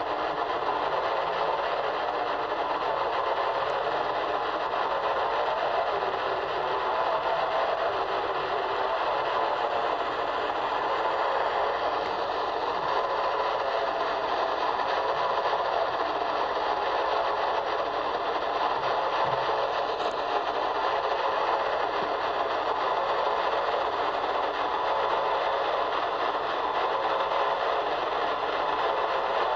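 Steady static from an AM radio's speaker, tuned to 1340 kHz: an even hiss with a faint tonal hum in it, unbroken throughout and carrying no station audio.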